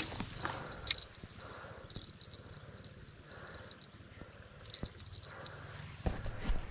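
Insects chirring in a steady high-pitched drone that swells in short pulses, over rustling of leafy riverbank plants and a few sharp clicks of handling.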